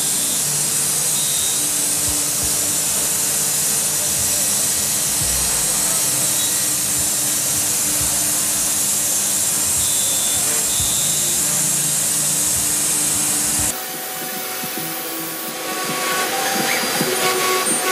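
CNC router spindle cutting letter outlines into a wooden board: a steady, loud high hiss of the spinning cutter working through the wood. About 14 seconds in the sound drops abruptly, quieter and with less rumble, then turns rougher and more uneven.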